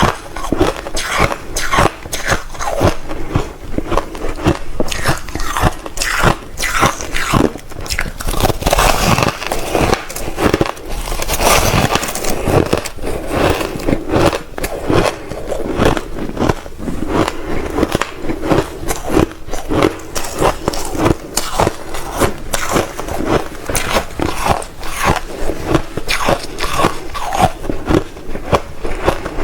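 Close-up crunching of reshaped (refrozen) crushed ice being bitten and chewed, a dense run of crisp crunches several a second without a break.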